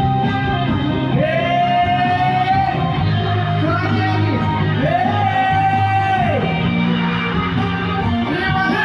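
Live dangdut band music with a lead singer: two long held melody notes over a steady bass and drum accompaniment.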